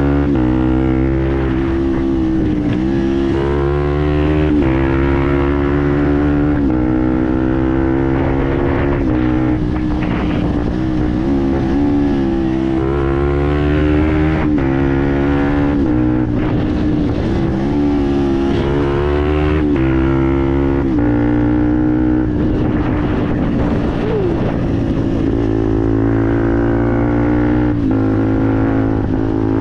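Fantic Performance 125 Motard's single-cylinder four-stroke engine running loudly through a GPR aftermarket exhaust. Its pitch climbs and drops again and again as the revs rise and fall.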